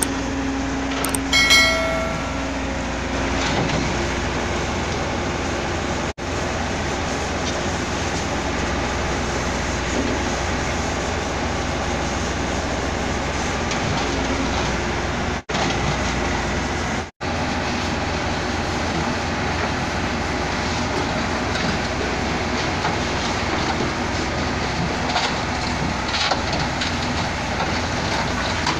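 Heavy diesel machinery, the L&T Komatsu tracked excavator on the truck bed, running steadily. A short electronic chime sounds about a second and a half in, and the sound drops out briefly three times.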